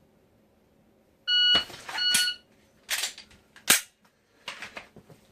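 Shot timer start beep, then its par-time beep about 0.7 s later, during a dry-fire pistol draw from a holster. Sharp clicks and short rustles from the gun and holster follow, one click standing out about two seconds after the start beep.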